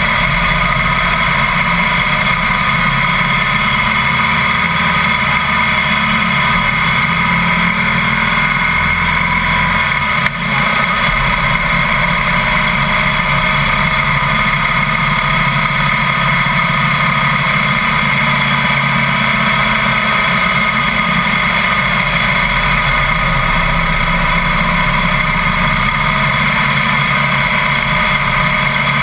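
Harley-Davidson Heritage Softail under way on the road, heard from a camera mounted low by the front wheel: a steady rush of wind and road noise with the V-twin engine running beneath it. A single brief click about ten seconds in.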